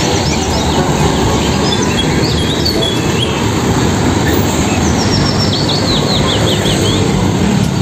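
Road traffic of trucks and motorbikes passing close by, a steady rushing noise. Small birds chirp over it, with a quick run of chirps later on.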